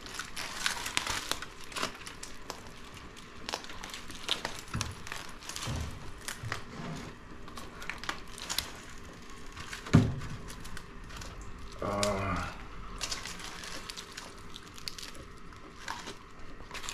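Aluminium foil lining a roasting tray crinkling and crackling as a whole roast suckling pig is handled and lifted off it, with many small crackles throughout. A single thump about ten seconds in is the loudest sound, and a brief pitched sound follows around twelve seconds.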